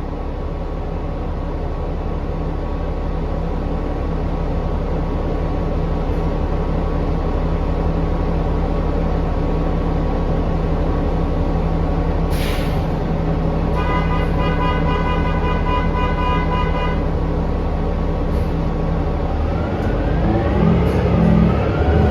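Interior drone of a New Flyer XD40 diesel transit bus under way: a dense, steady engine and drivetrain hum made of many held tones, growing louder as the bus picks up speed. It is the unusual running noise the rider finds weird on this bus. About 14 seconds in, a horn sounds for about three seconds, and near the end rising whine-like glides come in over the drone.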